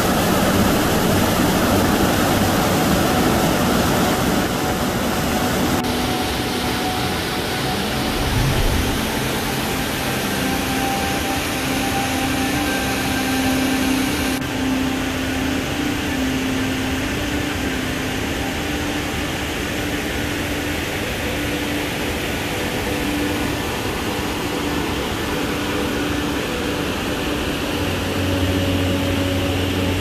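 Steady rush of a large cascade waterfall, an even roar of falling water whose highest hiss drops a little about six seconds in and again about halfway. Faint held tones sit underneath.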